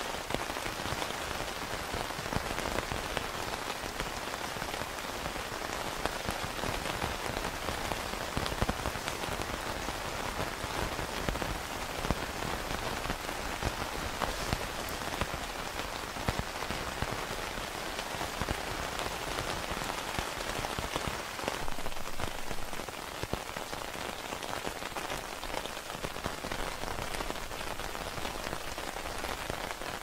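Steady rain falling, a dense patter of drops hitting a surface.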